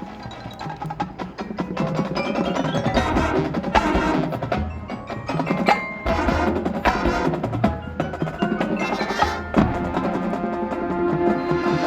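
Marching band percussion feature: mallet instruments such as marimba, xylophone, glockenspiel and chimes playing rapid struck notes over drum hits.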